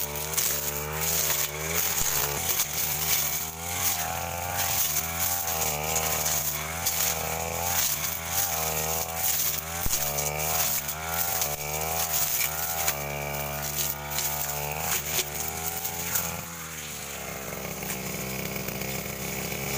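Backpack brush cutter engine running at high throttle while its blade cuts through ferns and undergrowth. The engine pitch rises and falls again and again with throttle and load, and the blade makes scattered sharp ticks as it strikes. About 16 seconds in, the engine drops back to a steady idle.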